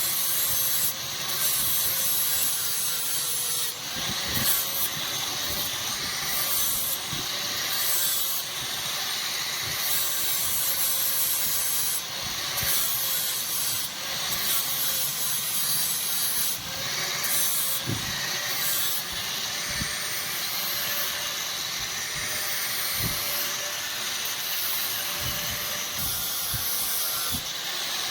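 Electric grinder working steel: the motor's hum wavers in pitch as the blade is pressed on and eased off, with a harsh rasp that comes and goes.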